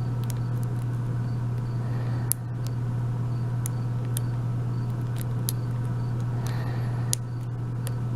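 Lock pick and tension wrench working the pins of an Abus 72/40 euro cylinder: scattered light metallic clicks, with two sharper clicks about two and seven seconds in. A steady low hum sits under it and is the loudest thing.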